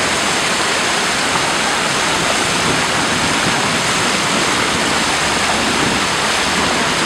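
A plaza fountain's jets splashing and water running across the paving: a loud, steady rush of water that never lets up.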